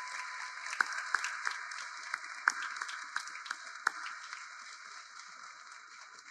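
Crowd applauding: many people clapping, with a few louder individual claps standing out, the applause dying away over the last couple of seconds.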